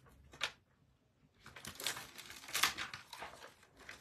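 Clear plastic stamps and their plastic carrier sheet crinkling and clicking as they are handled. There is one short tap about half a second in, then a run of rustles from about a second and a half on.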